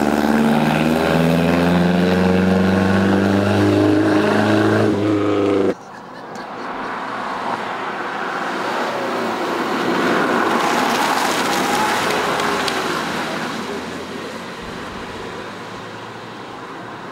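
Porsche 356's air-cooled flat-four accelerating away, its pitch climbing steadily, until it cuts off abruptly about six seconds in. Then a Fiat 500L approaches and passes: a softer, less tonal sound that swells to a peak near the middle and fades away.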